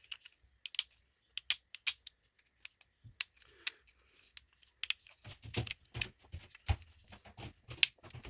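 Irregular light clicks and taps of small metal and plastic parts and tools being handled while an idle air control valve is refitted. They come more often, with some dull knocks, about halfway through.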